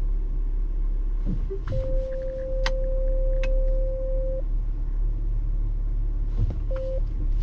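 Volvo dashboard warning tone: one long steady beep lasting nearly three seconds, then a short beep near the end, with a few sharp clicks of the electronic parking brake switch, over a steady low rumble in the car's cabin. The car is flagging a parking brake problem.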